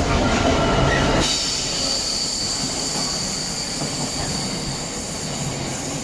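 Train running on the rails: a loud low rumble for about the first second, then a steady high-pitched squeal of wheels against the rails.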